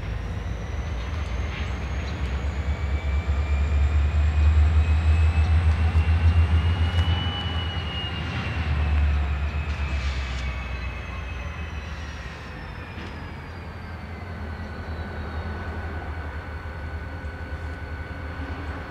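Two CSX diesel locomotives, one of them an EMD GP40-2, working under power as they pull a cut of cars through the yard. A deep engine rumble is loudest from about four to ten seconds in, with a whine that rises and then falls away, and a few light clanks.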